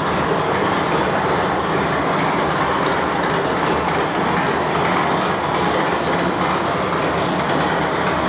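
Race-built 355-cubic-inch small-block Chevy V8, with 12-to-1 compression and a 600-lift roller cam, running loud and steady.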